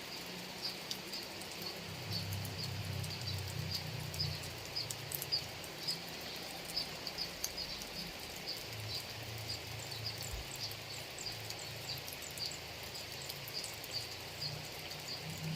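Steady rain falling over rice fields, with short high chirps from a small creature repeating irregularly, about two a second.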